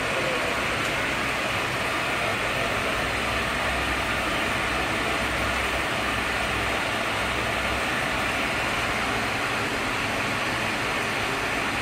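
Board-production-line machinery running steadily, a constant even whirring noise with a low rumble underneath.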